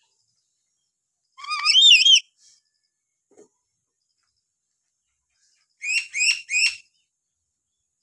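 Black-capped lory whistling: one loud warbling call about a second and a half in, then three short quick notes in a row near the end.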